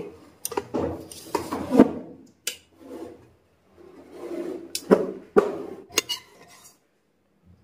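A steel ladle scooping cooked rice out of an aluminium pot and tipping it onto a steel plate: a run of scrapes and sharp metal clinks that dies away about two-thirds of the way through.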